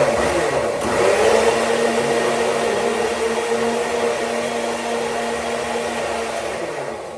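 Electric mixer grinder with a stainless-steel jar running. Its motor speeds up over the first second, runs at a steady whirr, and starts to wind down at the very end.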